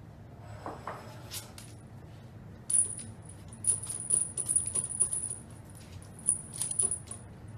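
Small jingle bell on a dangling cat toy jingling as a cat bats at it with its paws: a high ringing broken by quick irregular rattles, starting about three seconds in and stopping shortly before the end.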